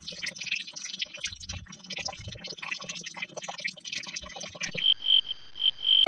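A dense chorus of short clicking, croaking calls from frogs and insects, with a high, pulsing insect chirp repeating near the end.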